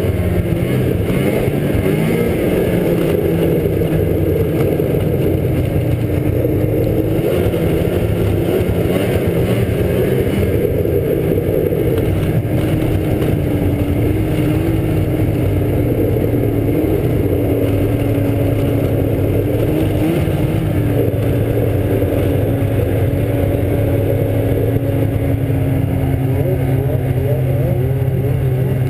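Snowmobile engine running steadily at low speed, heard up close from the rider's helmet, its pitch holding almost level and easing down a little toward the end.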